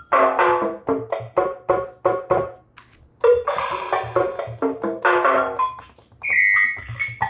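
The Vangoa VGD611 digital keyboard in drum kit mode, played through its built-in speakers: keys struck one after another, about three or four a second, each sounding a different short percussion sample. About six seconds in, a held, high, steady tone starts.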